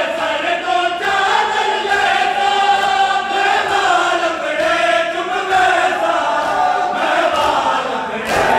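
A large crowd of men chanting a Punjabi mourning noha together in long, drawn-out sung lines. A single sharp slap comes near the end.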